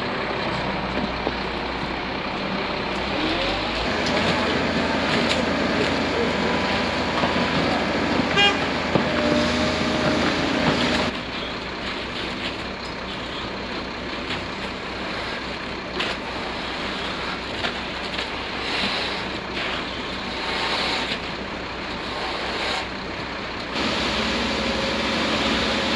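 Heavy vehicle engines running steadily on a job site during a concrete slab pour, likely the concrete delivery trucks. The sound changes abruptly twice, about 11 seconds in and again near the end.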